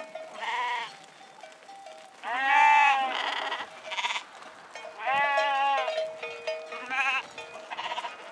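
Sheep and goats of a mixed flock bleating, about eight calls one after another, the loudest a long one about two seconds in. Some of the calls quaver.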